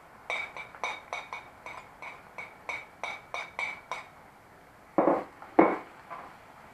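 Steel knife blade tapping and scraping against a ceramic plate in a quick run of about a dozen ringing clinks, about four a second, as sliced squid is pushed off it into a frying pan. About five seconds in come two heavier knocks as the plate and knife are put down on the counter.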